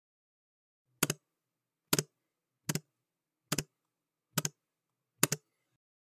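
Six single keystrokes on a computer keyboard, evenly spaced a little under a second apart, each a quick double click.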